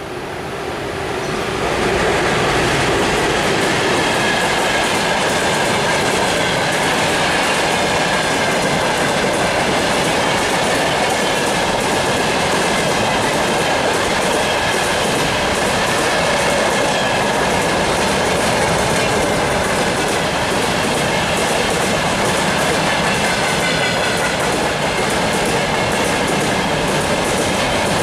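Soviet VL10K electric freight locomotive running up and past, getting louder over the first two seconds, then a long freight train of open gondola wagons rolling by with a steady rapid clickety-clack of wheels over the rail joints. A faint wavering high tone runs through the clatter.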